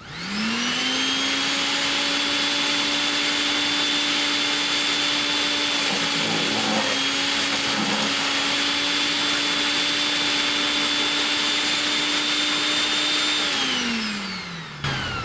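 Portland electric wood chipper-shredder switched on: its motor whirs up to speed within about half a second, runs at a steady high whine, and near the end is switched off and winds down in falling pitch.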